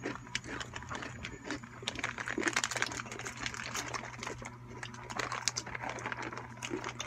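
Crunchy snack being eaten close to the microphone: irregular crackly crunches, thickest about two and a half to three and a half seconds in, over a steady low hum.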